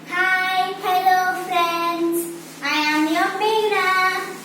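A child singing alone, without accompaniment: two short phrases of long held notes, with a brief pause between them about halfway through.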